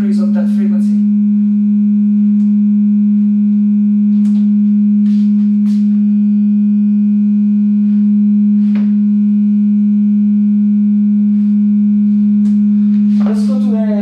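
Steady sine test tone at about 207 Hz from a signal generator, played through loudspeakers to excite a room resonance near that pitch. A few faint clicks sound over it.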